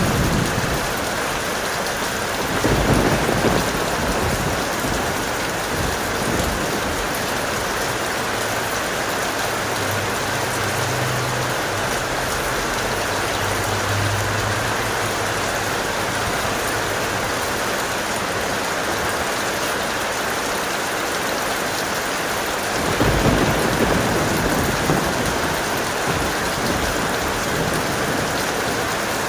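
Steady heavy rain with rolls of thunder: a low rumble at the start, another about three seconds in, and a third about twenty-three seconds in.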